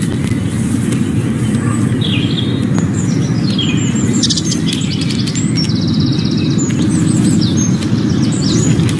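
Songbirds chirping and trilling, with a rapid trill about six seconds in, over a steady low rumble.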